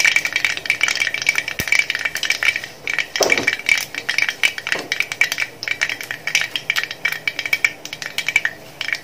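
Mustard seeds popping and spluttering in hot gingelly (sesame) oil in a heavy metal pan: a rapid, irregular crackle of many small pops over a steady sizzle, the sign that the oil is hot enough for tempering.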